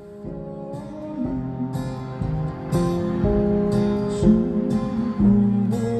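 Acoustic guitar music: strummed chords ringing on, growing louder over the first few seconds.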